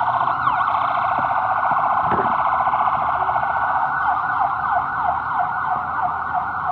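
Ambulance siren passing in the street, cycling very rapidly at first, then switching about four seconds in to a yelp of quick falling sweeps, about three a second.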